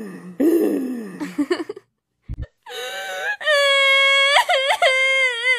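A cartoon character's voice whimpering, then after a short gap a long, high wail that holds its pitch and wavers up and down near the end.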